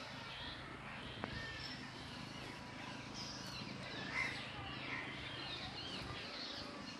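Small birds chirping and calling over outdoor ambience, many short rising and falling chirps, with a steady low hum underneath and one sharp click about a second in.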